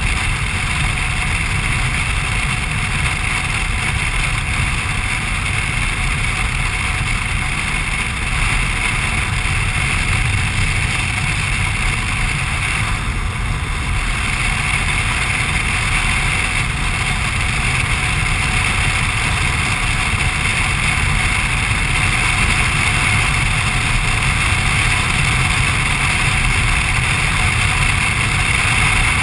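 BMW R1200RT flat-twin motorcycle cruising at steady speed, its engine and the wind rush blending into one loud, unchanging noise.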